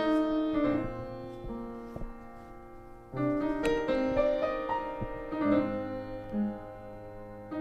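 Slow piano music: groups of notes struck at the start, about three seconds in and again about two seconds later, each left to ring and fade.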